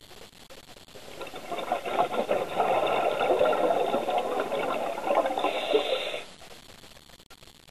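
Scuba diver exhaling through a regulator underwater: a burst of bubbling, crackling rattle that builds about a second in and cuts off sharply a little after six seconds in.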